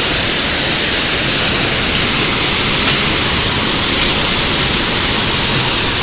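Storm wind with heavy rain: a loud, steady rushing noise as gusts tear through the trees.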